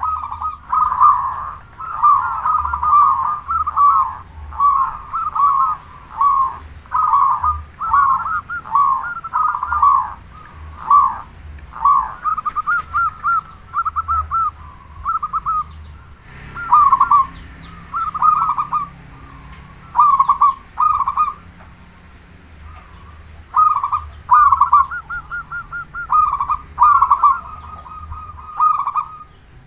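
Zebra dove (perkutut) cooing: short rapid trilled coo phrases repeated over and over, with a brief pause about two-thirds of the way through.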